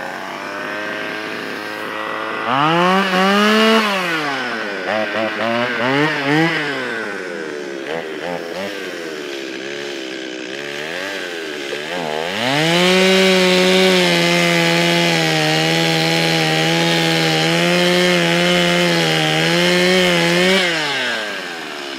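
Chainsaw cutting into a tree trunk. It idles, revs up sharply about two and a half seconds in, surges up and down in short bursts, then runs at steady full throttle through a long cut before the revs drop off near the end.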